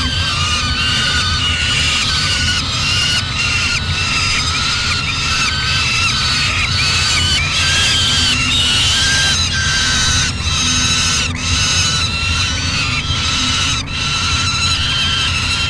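Several juvenile peregrine falcons giving harsh, wailing begging calls, repeated rapidly and overlapping in a continuous chorus, over a steady low hum.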